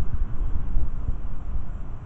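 Storm wind buffeting the microphone: a gusty, uneven low rumble.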